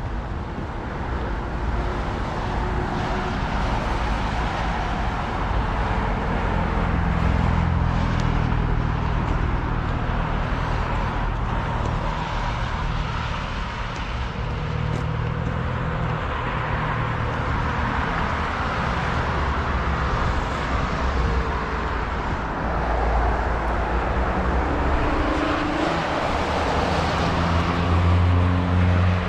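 City street traffic: cars driving past with a steady hum of engines and tyres, and vehicles swelling louder as they pass close by a few times.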